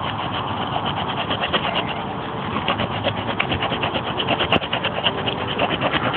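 Serrated edge of a cheap folding knife sawing back and forth through wood in quick rasping strokes, several a second.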